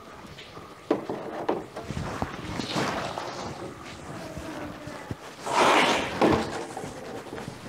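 Aluminium trays knocking and clattering as they are lifted and stacked. Several light knocks come in the first few seconds, and a louder scraping slide of metal on metal about five and a half seconds in ends with a knock as a tray is set onto the stack.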